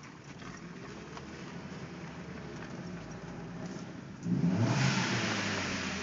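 1.8T turbocharged four-cylinder engine running at low revs with its pitch creeping up, then revved hard about four seconds in, getting suddenly louder with a rush of noise. The owner asks whether the sound points to an exhaust leak.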